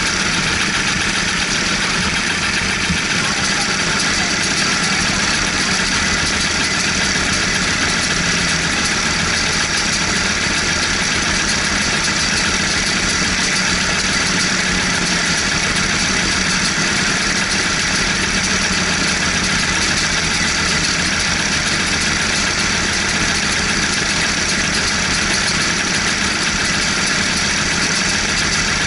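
Several racing kart engines idling steadily, heard from on board a kart.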